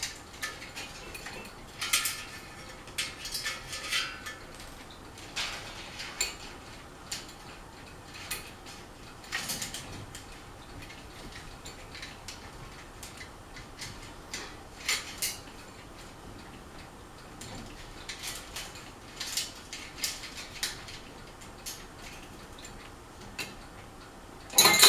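Craftmade Phoenix ceiling fan running on high: irregular light metallic clinks and clicks, one every second or two, over a faint steady background. A louder cluster comes near the end.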